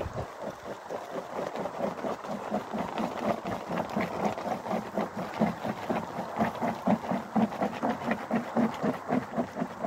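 Dozens of guinea pigs calling in rapid, pulsing chatters as leafy greens are tipped out for them, with the rustle of vegetables falling from a basket.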